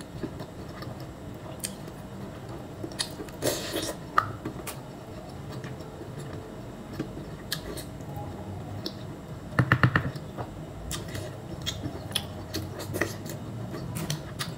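Close-up eating sounds from mussels in thick sauce: mouth chewing and smacking, with small clicks as the shells are handled by hand. A short noisy burst comes about three and a half seconds in, and a quick run of sharp clicks about ten seconds in is the loudest moment.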